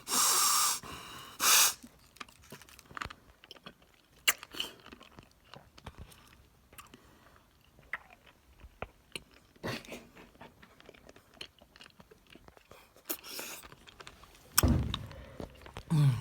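Mouth sounds of someone chewing and sucking several Warheads sour hard candies at once: scattered small wet clicks and crunches, with loud breaths in the first two seconds and again near the end.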